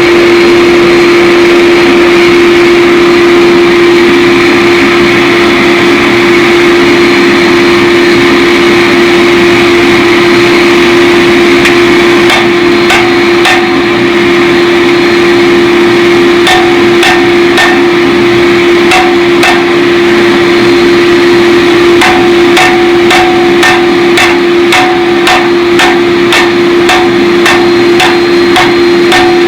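Hammer blows on steel at the anvil, starting about twelve seconds in: scattered at first, then a steady run of about two blows a second, each with a short metallic ring. Under them a loud, steady machine hum keeps going.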